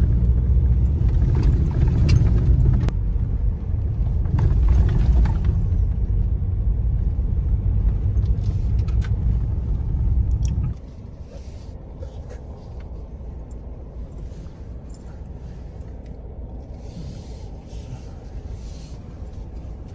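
Ford Ranger Raptor heard from inside the cabin while driving on a rough dirt track: a loud low rumble of tyres and engine, with knocks and rattles from the bumps. About ten seconds in it drops suddenly to a much quieter, steady low rumble.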